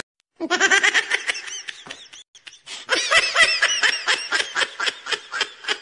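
Rapid, high-pitched giggling in two bursts, with a short break about two seconds in.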